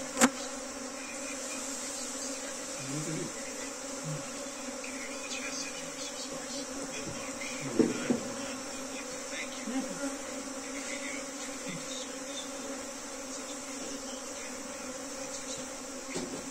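A honeybee swarm buzzing in a steady hum as it clusters on a log hive, its new home. A sharp click sounds just after the start, and two more come near the middle.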